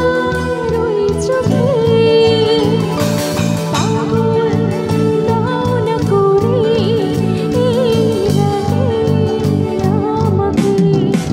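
A woman singing live into a microphone with a backing band: long, wavering held notes over a steady bass-and-drum beat with cymbals.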